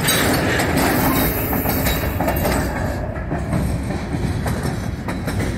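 A Norfolk Southern freight train passing close by, first a diesel locomotive and then covered hopper cars, the car wheels clacking over the rail joints in a steady stream of noise.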